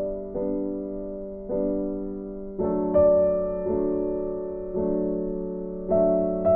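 Slow background piano music: soft chords struck about once a second, each fading before the next.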